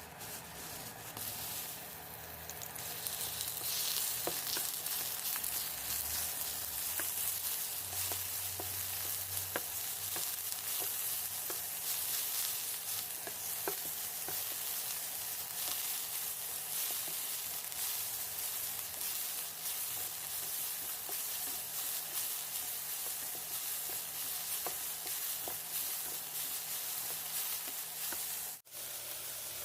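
Stir-fry sizzling in a hot pan of choy sum, king oyster mushrooms and minced pork, with occasional light clicks of the spatula as it is stirred. The sizzle grows louder a few seconds in and cuts out for a moment near the end.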